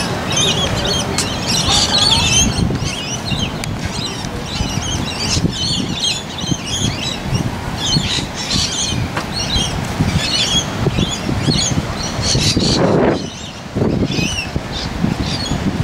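Many birds chattering, with a rapid stream of short, squeaky, overlapping calls, over a steady low rumbling noise.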